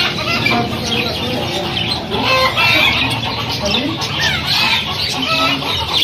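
Many caged birds calling at once: chickens clucking amid the dense chirping of budgerigars and other small cage birds.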